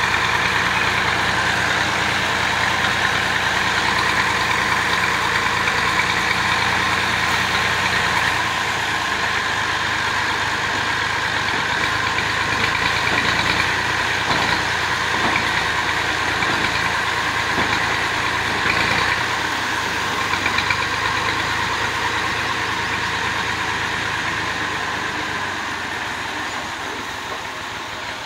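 MF 385 tractor's diesel engine running steadily while its hydraulics tip a trailer load of chopped wheat straw. It gets gradually quieter toward the end.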